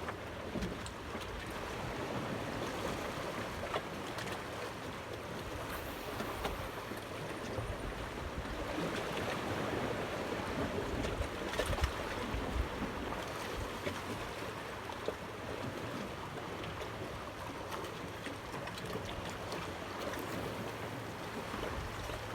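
Water lapping and sloshing against a small fishing boat, with a few light knocks.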